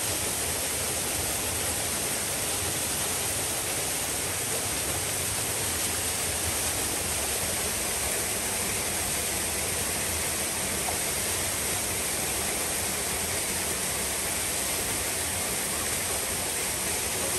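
Steady rushing of falling water, an even unbroken roar of a river cascade.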